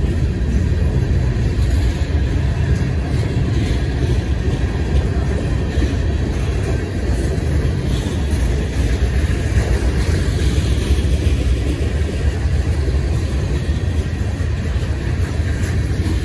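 Freight train rolling past, a loud, steady low rumble.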